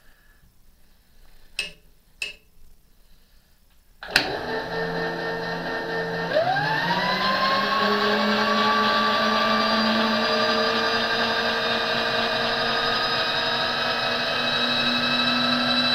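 Electric motor driving the table of an RF-31 mill/drill along its X axis. A couple of faint clicks, then a sharp switch click about four seconds in, and the motor starts with a whine. Its pitch rises and settles a couple of seconds later, then it runs steadily.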